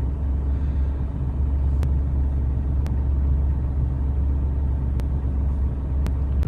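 A car engine running steadily, heard as a low rumble, with four faint ticks spread through it.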